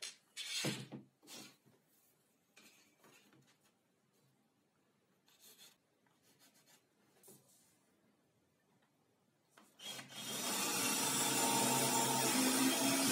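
Short pencil scratches and the knocks of tools being handled on a laminated board tabletop. About ten seconds in, a cordless drill starts and runs steadily, its bit boring into the board.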